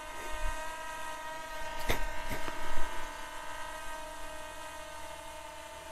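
SJRC F7 4K Pro quadcopter's propellers humming steadily, a buzz of several fixed tones as it hovers. A couple of short knocks about two seconds in.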